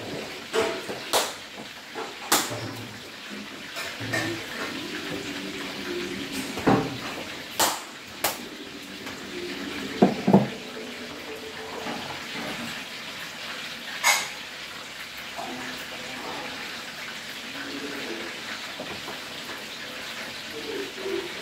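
Food frying in oil in a pan, a steady sizzle, with several sharp clinks and knocks of a utensil against the pan and other cookware.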